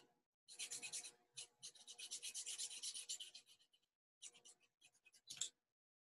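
Felt-tip marker scribbling on paper in quick back-and-forth colouring strokes, a dense run for about three seconds, then a few short separate strokes.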